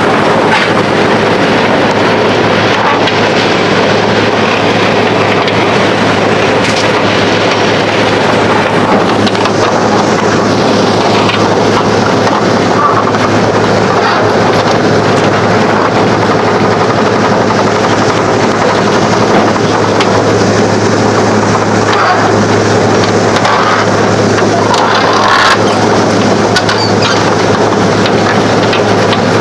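Bandit Beast 2680T horizontal grinder running, its CAT C15 diesel engine and machinery making a loud, steady mechanical noise with a constant low hum underneath that does not change throughout.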